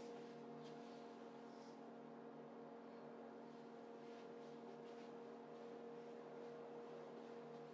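Faint steady hum made of several held tones, with a few light ticks and rustles of handling.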